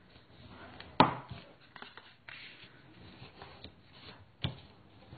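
Scored cardstock being folded up and creased by hand on a tabletop: paper rustling and small ticks, with two sharp taps on the table, the louder about a second in and another near the end.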